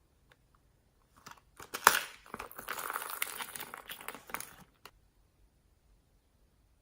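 Hands working glossy slime with floam beads mixed in: a run of wet crackling and popping for about three and a half seconds, loudest near its start, with a few faint ticks before and after.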